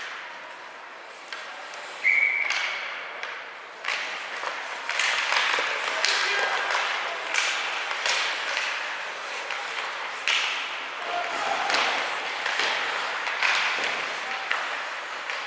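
Ice hockey game in an arena: a short, steady whistle blast about two seconds in, then scattered sharp knocks and clacks of play over spectators' voices.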